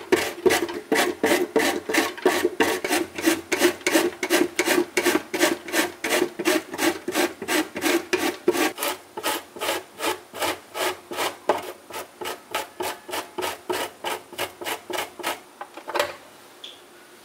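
Zucchini being julienned on a plastic julienne slicer set over a container: rhythmic rasping strokes, about three a second, growing softer before they stop near the end. A single knock follows.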